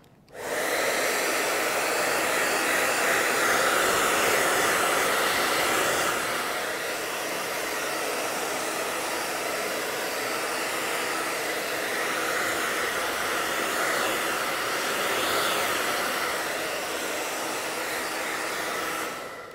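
Handheld hair dryer blowing steadily, drying a freshly applied coat of glue. It switches on just after the start, runs a little quieter from about six seconds in, and switches off just before the end.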